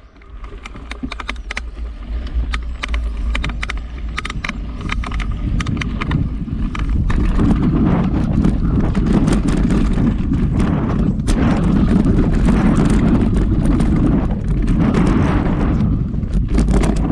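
Calibre Bossnut V2 mountain bike ridden over a dirt trail, heard from a handlebar-mounted camera. For the first few seconds there is sharp, irregular clicking and rattling. Then, as speed builds, a loud rumble of tyres on dirt and wind on the microphone takes over, with knocks from bumps still coming through.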